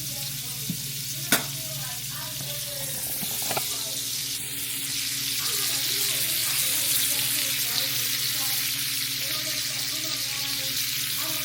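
Egg frying in a pan, with a steady sizzle throughout. A sharp tap on the pan comes about a second in and a softer knock a few seconds later.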